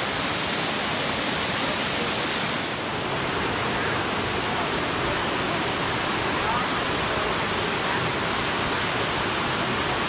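Mingo Falls, a tall waterfall cascading down a rock face into a rocky creek, giving a loud, steady rush of falling water. About three seconds in, the sound loses some of its highest hiss.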